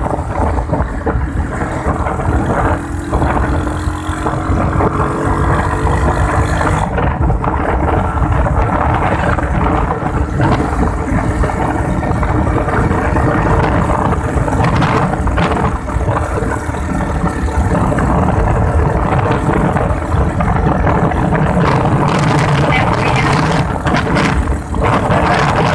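Wind buffeting the microphone and road noise from a vehicle travelling at speed, with a faint engine hum that rises a little in pitch a few seconds in.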